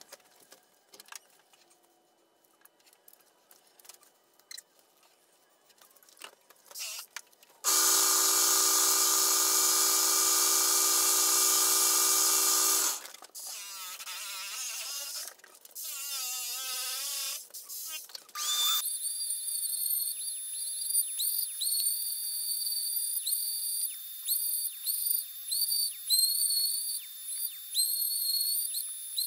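Large stationary belt sander shaping a foam body. After a quiet stretch of light clicks, a loud steady machine hum starts and stops abruptly about eight to thirteen seconds in. From a little past halfway, a high whistling rises and falls over and over as the foam is pressed against the belt.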